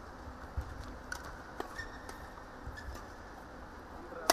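Badminton rally: a few light racket hits on the shuttlecock, then one loud, sharp hit near the end.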